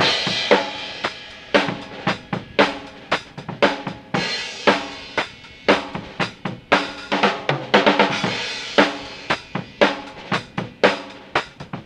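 A Tama Imperialstar drum kit with Meinl cymbals played in a steady beat of kick and snare. Crash cymbal accents land at the start, about four seconds in and about eight seconds in, each ringing out under the continuing beat.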